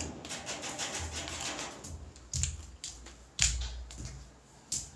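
Scattered knocks and light clatter with low thuds, three sharper knocks standing out about two and a half, three and a half and near five seconds in.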